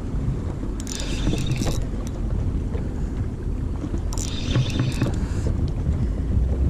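Spinning reel buzzing in two short bursts, about a second in and about four seconds in, as a hooked fish is played. Underneath is a steady low rumble of wind and water.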